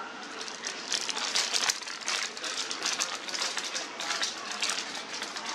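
A long paper receipt rustling and crinkling as it is shaken and waved by hand, in quick irregular flurries.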